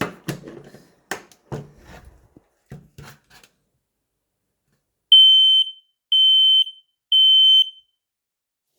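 Smoke alarm sounding its test alarm: three loud, high-pitched beeps about a second apart, each about half a second long, the standard three-beep fire pattern. A few knocks and clicks come before the beeps.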